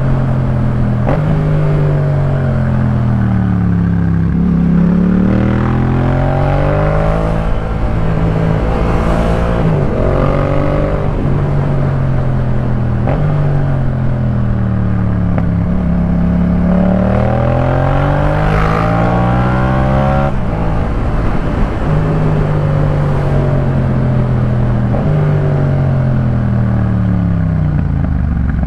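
Yamaha MT-07's parallel-twin engine breathing through a Jeskap K4 full exhaust system while being ridden: the exhaust note climbs and falls in pitch again and again with the throttle, with a few sudden pitch breaks like gear changes.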